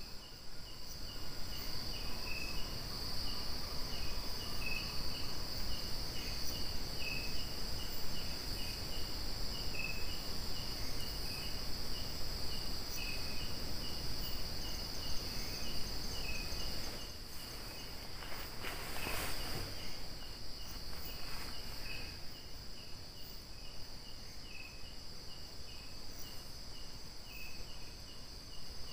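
Night insects: a steady high-pitched insect trill, with a cricket chirping at an even pace over it. Low rumbling noise underneath eases about two-thirds of the way in.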